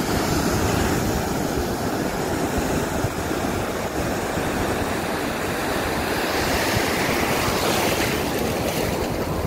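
Ocean surf rushing in the shallows: a steady wash of waves and foam. It swells about seven to eight seconds in as a wave breaks and its foam surges through.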